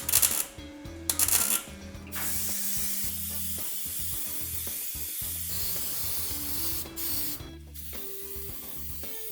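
Hissing spray: two short bursts, then a steady spray lasting about five seconds that stops about three-quarters of the way through.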